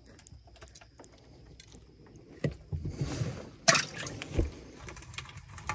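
Crayfish trap being hauled and handled: a few low knocks and a short rush, then a sharp clatter a little past halfway and another thump.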